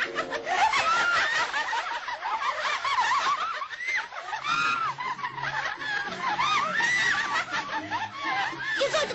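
Several high-pitched cartoon squirrel voices chattering and giggling: a dense run of quick, squeaky rising-and-falling squeals.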